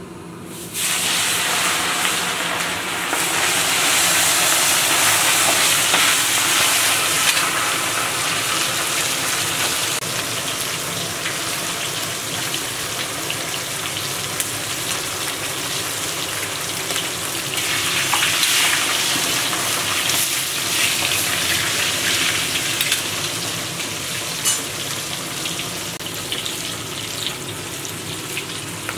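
Raw bone-in meat chops frying in hot oil in a kazan cauldron: the sizzle starts suddenly about a second in as the meat goes into the oil, is loudest over the next few seconds, then holds steady with scattered spattering crackles.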